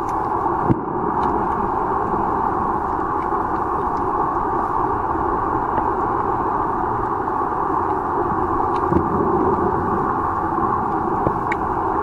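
Steady, muffled underwater rushing noise picked up by a submerged camera in shallow reef water, with a few faint clicks scattered through it.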